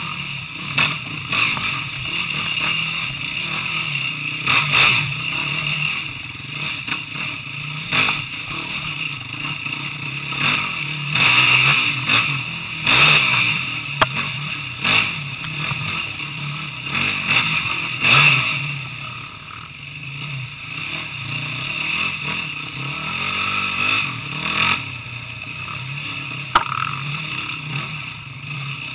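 Enduro motorcycle engine running, its level rising and falling, with many sharp knocks and clatter as the bike rides over rocky ground.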